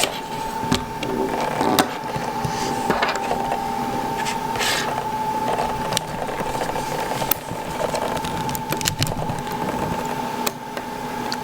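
Small hand tools clicking and scraping against the iPhone 5's internal parts as a logic-board section is pried loose, in scattered irregular ticks. A steady high-pitched hum sounds underneath throughout.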